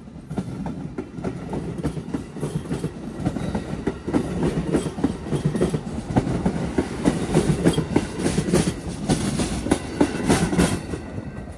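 Amtrak passenger coaches rolling past close by: a steady rumble with the steel wheels clicking rapidly and irregularly over the track, growing louder about four seconds in.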